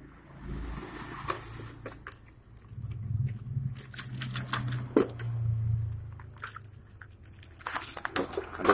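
Crinkling and rustling of a plastic bag and foam packing as a riflescope is handled in its box, with scattered clicks and knocks. A low hum swells in the middle and fades.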